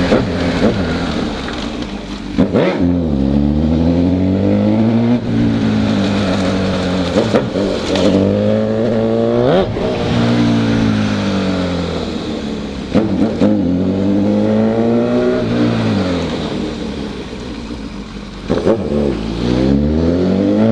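Honda CB1000 motorcycle's inline-four engine pulling hard through the gears: the pitch climbs and drops sharply at each shift, with spells where it falls away as the bike slows, then climbs again. A few short sharp cracks stand out along the way.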